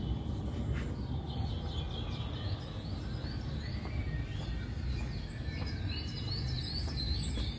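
Jungle soundscape played over the exhibit hall's speakers: many short bird chirps and whistles, with some insect sound, over a steady low rumble.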